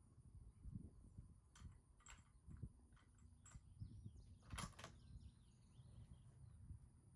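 Near silence: faint outdoor background with a low rumble and a few faint clicks, the clearest about four and a half seconds in.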